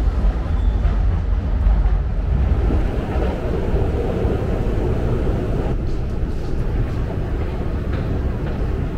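London Underground S Stock train running along the platform with a deep rumble that eases after about two and a half seconds, leaving a steady, noisy station din.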